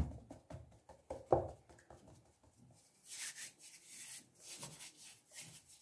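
Hands kneading and rubbing floury yeast dough in a plastic basin: soft, dry brushing strokes, about two a second, mostly in the second half.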